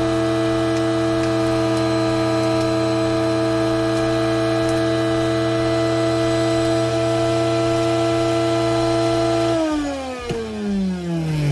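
Mueller centrifugal juicer running at full speed on leafy greens, a steady high motor whine. About nine and a half seconds in, the motor winds down and the whine slides steadily lower in pitch.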